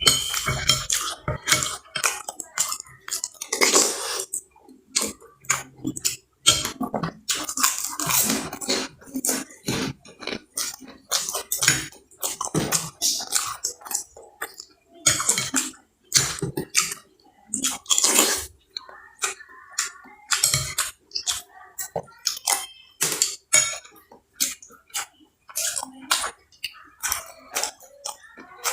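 Close-up eating of lontong sayur with crackers: irregular crunching, chewing and slurping, loud and close to the microphone.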